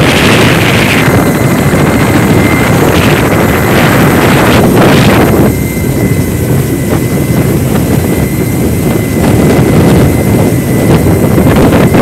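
Firefighting helicopter in flight, heard loud from its open door: steady rotor and engine noise with a thin steady whine, and wind buffeting the microphone in uneven gusts.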